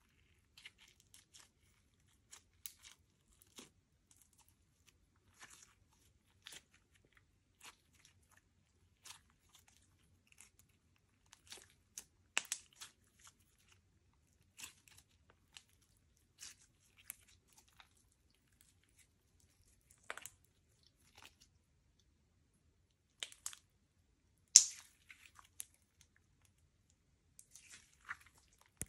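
Slime being worked by hand: scattered small crackles and pops with quiet gaps between them, one louder pop late on.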